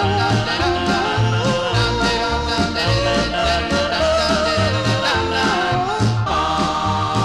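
Background music: a country song with a steady bass beat under a wordless melody line.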